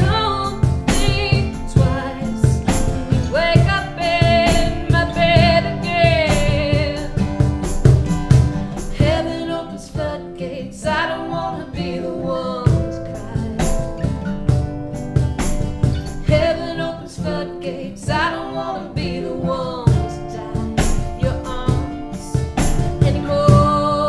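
A small acoustic band playing live: a woman sings the melody over strummed acoustic guitars and keyboard, with a cajon keeping a steady beat.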